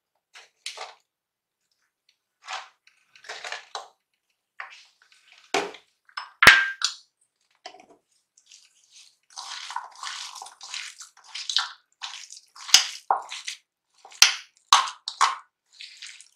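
Hands kneading mashed potato with peas and chopped onion in a steel bowl: soft squishing and rustling, sparse at first and nearly continuous from about halfway, with a few sharp clicks.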